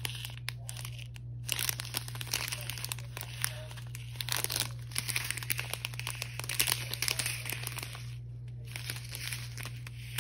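A strip of thin clear plastic bags holding diamond painting drills crinkling as it is handled, in irregular crackly rustles with a couple of short pauses, over a steady low hum.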